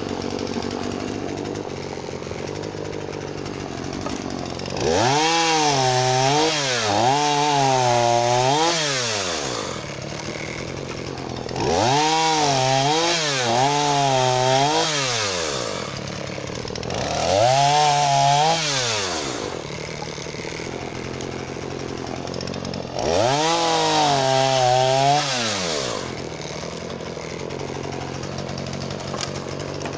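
Husqvarna 236e two-stroke chainsaw idling, then revved up to cut through firewood logs in four bursts of a few seconds each, dropping back to idle between cuts. In each cut the engine pitch rises, sags and recovers as the chain bites into the wood.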